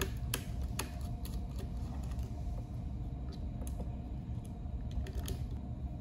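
Small screwdriver working a terminal screw on a magnetic contactor, tightening a wire into the A2 coil terminal: scattered light clicks and scrapes of metal and plastic, over a steady low background hum.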